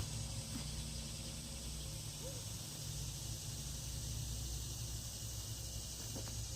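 Steady outdoor background: a low hum under an even high-pitched hiss, with no distinct event standing out.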